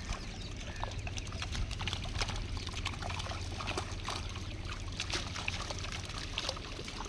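Water trickling and splashing, with many small irregular drips and clicks over a steady low rumble.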